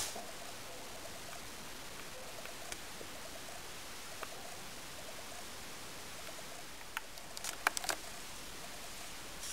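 Steady low hiss of room tone picked up by the camera's microphone. A few sharp clicks and knocks come about seven to eight seconds in.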